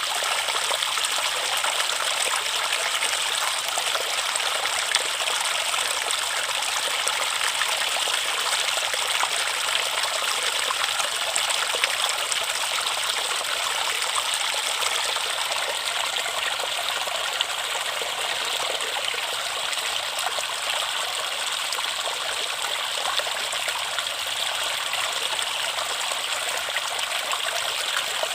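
Stream water running and trickling steadily over stones, a constant bright rushing with no low rumble.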